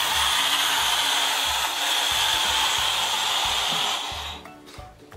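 Air hissing steadily out of the balloon of a balloon hovercraft as it deflates through the nozzle under the balloon, fading out about four seconds in as the balloon empties.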